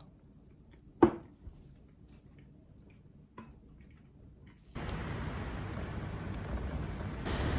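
Quiet eating of a bowl of oatmeal with a metal spoon: a sharp clink about a second in and a softer tap later. About five seconds in it changes abruptly to steady outdoor street noise.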